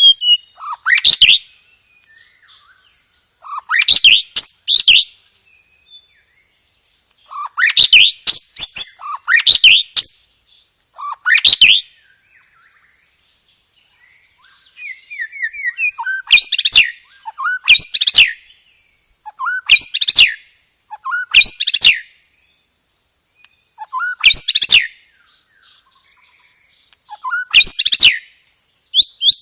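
White-rumped shama (murai batu) singing loud, rapid, stuttering phrases in bursts every second or two, with a few longer pauses. A faint steady high tone runs underneath.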